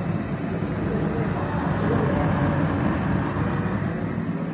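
Puxin biogas cookstove burner running with a full blue flame, giving a loud, steady rushing noise.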